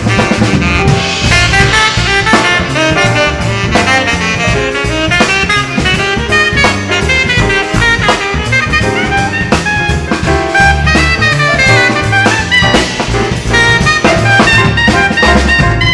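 Live band playing a jazzy tune, with horns over a drum kit keeping a steady beat.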